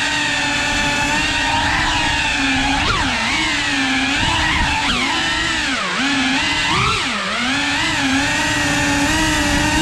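Cinewhoop FPV drone's small brushless motors and ducted propellers whining steadily, heard close up from the drone itself. The pitch keeps sagging and rising again as the throttle is worked through tight turns, with several quick sharp dips.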